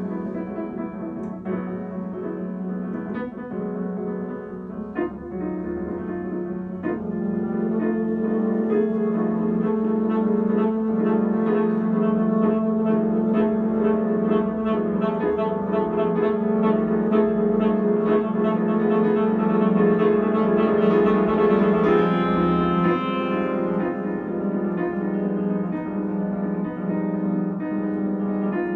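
Live duo of grand piano and saxophone playing a slow piece. About seven seconds in, the saxophone's long held notes grow louder over the piano, then ease off near the end.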